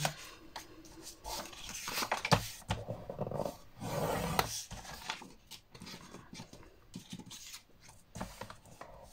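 Scissors cutting card strips in half: irregular short snips mixed with the rustle of the card being handled.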